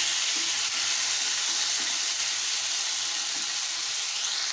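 Chopped tomatoes sizzling steadily in hot mustard oil in a non-stick kadhai, stirred with a wooden spatula that scrapes through the pan.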